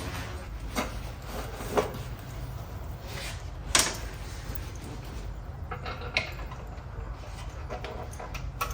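Scattered knocks and clicks of hand work on parts and tools, the two loudest about two and four seconds in, over a steady low hum.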